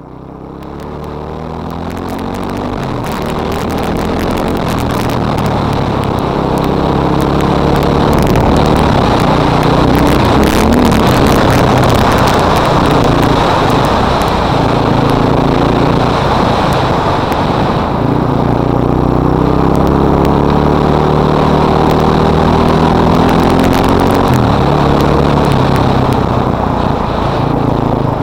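Yamaha YFM660R Raptor quad's 660 cc single-cylinder four-stroke engine running under way, its note rising and falling with the throttle while it is ridden gently during break-in. Heard through a helmet camera's microphone; the sound fades in over the first few seconds.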